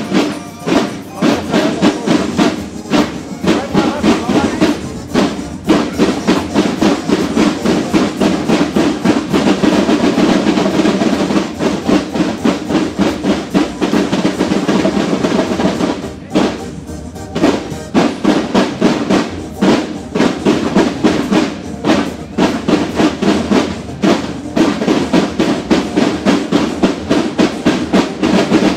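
Marching drums, snare and bass drum, playing a steady parade beat, with a brief break about sixteen seconds in before the drumming resumes.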